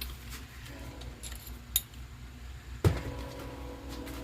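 Small metal tools and parts being handled on a workbench: a few light clinks and jingles, a sharp click partway through, and a louder knock near the end that leaves a faint ring.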